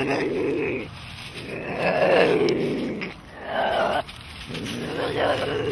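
Ocelot calling: a series of about four drawn-out yowls, each lasting around a second, with short pauses between them.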